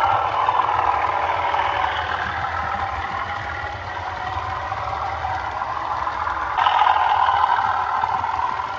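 DCC sound decoder in a Bachmann OO-gauge Class 37 model, playing the recorded sound of the locomotive's English Electric diesel engine through the model's small speaker. The engine runs steadily and eases slightly, then steps up suddenly and louder about two-thirds of the way through.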